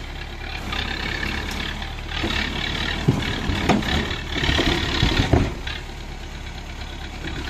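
Tractor engine running steadily, with a few sharp knocks and clunks between about three and five and a half seconds in.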